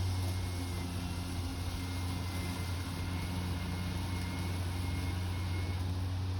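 EGO battery-powered lawn mower running steadily with its double blade spinning: a steady low hum with a thin, high motor whine over it.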